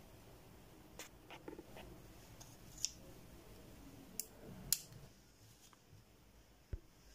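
Faint handling of a metal hobby knife, its spare blades and a clear plastic blade cap: a scattering of small, sharp clicks and taps, about eight in all.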